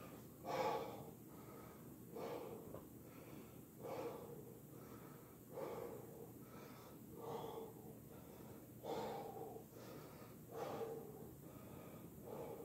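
A man breathing hard as he recovers from a maximal set of push-ups: about eight heavy exhalations blown out through pursed lips, in a steady rhythm of roughly one every second and a half.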